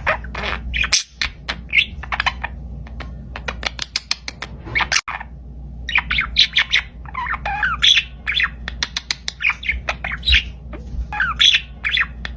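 Pet parakeet chattering: a rapid, continuous run of short chirps and squawks, with a few sharp clicks among them.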